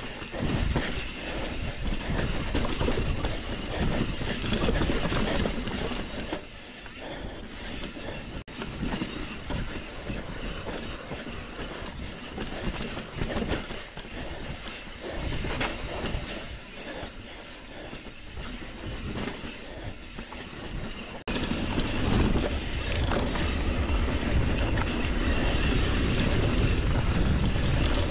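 Hardtail mountain bike rattling and clattering as its tyres run fast over a rocky dirt trail on a downhill run, with many small knocks and the rush of riding. About 21 seconds in, the sound turns into a steadier, louder rush with a heavy low rumble as the bike rolls onto smoother dirt.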